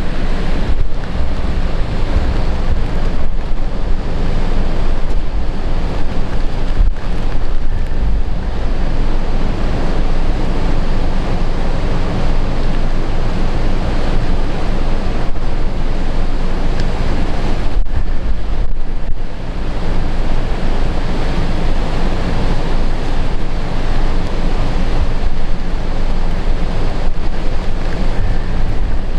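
Heavy typhoon surf breaking on the shore, with strong wind buffeting the microphone.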